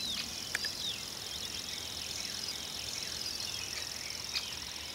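Woodland ambience: birds chirping in many short falling calls over a steady high insect drone, with two faint clicks, one about half a second in and one near the end.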